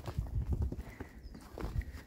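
Footsteps crunching in deep snow: a run of soft, irregular low thumps.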